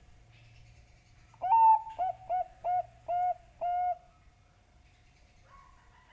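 Zebra dove (Bangkok perkutut) singing one song phrase of pitched coos: a longer opening note and then four short, evenly spaced coos, starting about a second in and ending around four seconds in.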